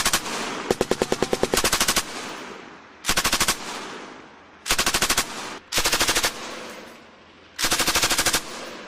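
Machine gun firing in short bursts of automatic fire, about ten rounds a second. There are about six bursts, the longest over a second, each followed by echo rolling away.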